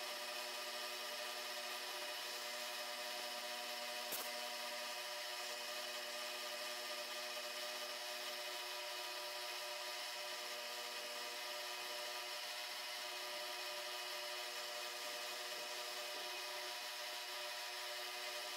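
Milling machine spindle running while an end mill cuts a slot in aluminium bar stock: a steady whine made of several steady tones, with one sharp click about four seconds in.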